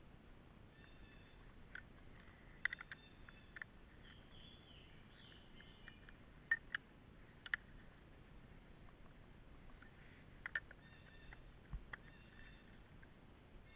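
Scattered sharp metallic clicks and taps of a chainsaw chain and its filing guide being handled during hand sharpening, some in quick clusters of three or four. A bird chirps faintly about four seconds in.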